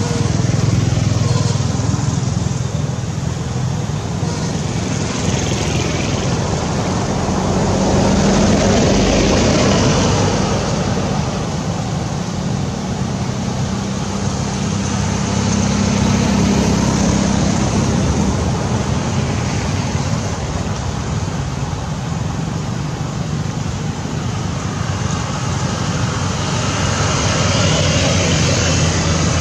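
Motor traffic: engines passing one after another, the noise swelling and fading as each vehicle goes by, with a low engine hum underneath.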